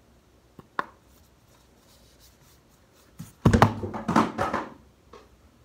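Two light clicks, then about three and a half seconds in a loud stretch of clattering and rustling as makeup products and brushes are picked up and handled, lasting just over a second.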